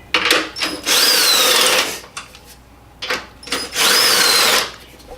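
Handheld power drill running in two short bursts of about a second each, its motor pitch rising and then falling in each run, with a few short clicks before each one. It is backing out fasteners.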